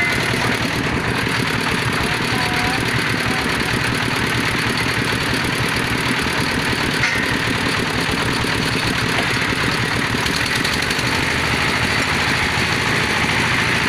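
Engine driving a bore-well drilling machine, running steadily at a constant speed.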